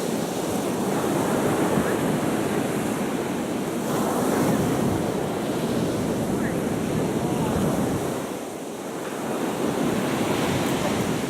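Sea waves washing on the shore, with wind buffeting the microphone. The rush swells and eases, dropping briefly a little past the eighth second.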